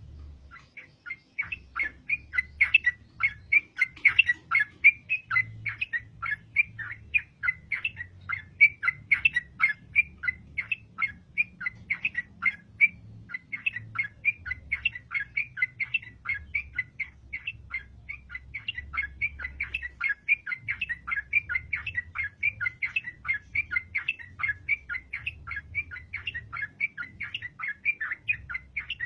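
Yellow-vented bulbul (trucukan) singing continuously: a rapid, unbroken run of short chattering notes, starting about a second in.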